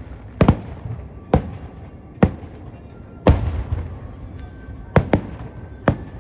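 Aerial fireworks shells bursting in a rapid series: about eight sharp booms in six seconds, two of them nearly together. Each boom is followed by a rolling echo that dies away.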